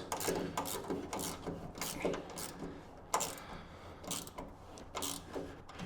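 Hand ratchet clicking in short, irregular runs while bolts on a truck canopy shell are tightened, with a few sharper knocks in between.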